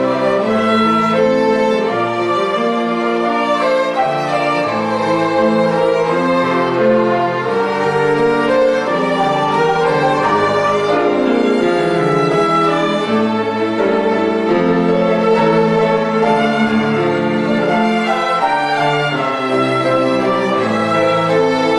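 Bowed strings playing a melodic piece: violins carrying the tune over a sustained lower string part, with several notes sounding together throughout.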